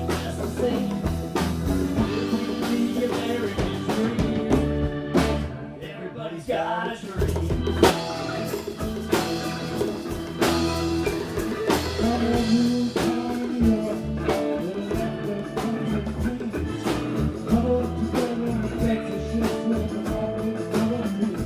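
Blues-rock band playing an instrumental passage: guitar over bass and a drum kit keeping a steady beat, with guitar lines bending in pitch partway through.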